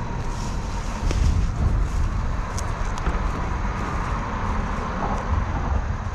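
Highway traffic: a steady rush of tyre and engine noise that swells for a few seconds in the middle as vehicles pass.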